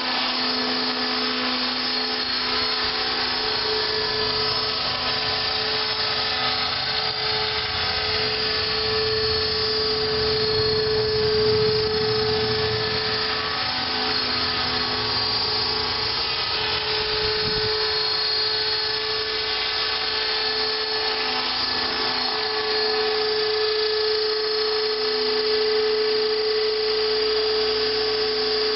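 Align T-Rex 600 electric RC helicopter in an MD 500 scale fuselage hovering: a steady high whine from the electric motor and gears over the hiss of the rotor blades. The whine fades out and comes back a few times as the helicopter turns and moves about.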